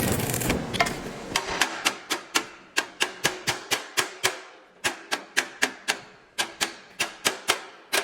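A dense crackling hiss that cuts off about half a second in, then a long run of sharp, evenly paced taps, about three to four a second, each ringing briefly.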